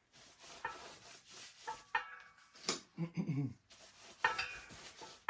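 Hand tire change on a dirt bike wheel: rubber scraping and rubbing as the lubed tire is worked on the rim, with several sharp metallic clicks of tire irons and a short low squeak about three seconds in.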